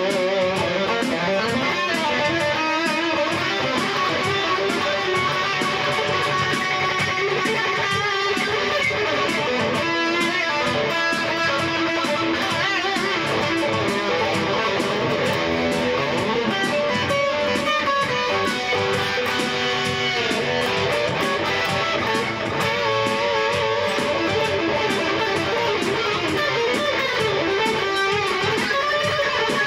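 Rock instrumental: electric guitar playing over a steady drum beat.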